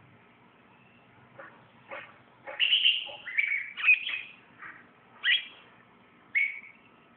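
Eye-ring lovebirds calling: a quick run of sharp, high chirps about two and a half seconds in, then two more single calls a second or so apart near the end.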